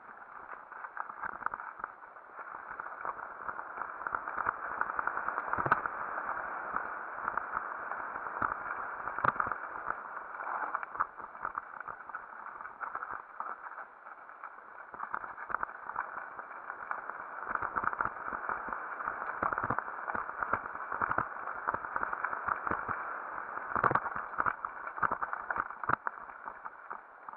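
Mountain bike rolling fast down a leafy dirt trail, heard muffled from a helmet camera: steady noise of the tyres on the ground, broken by frequent rattles and knocks as the bike goes over bumps and stones. The loudest knocks come about six, nine and twenty-four seconds in.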